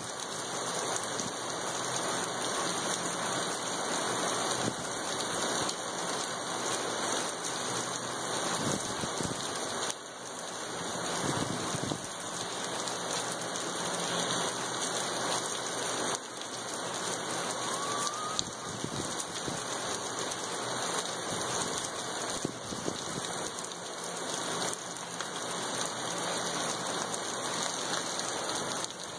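Heavy rain falling steadily, a dense even hiss of drops hitting the ground, vehicles and roofs.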